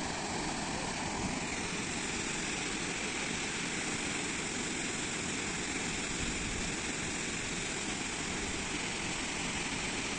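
Steady rushing roar of a waterfall: a continuous, even noise that holds at the same level throughout.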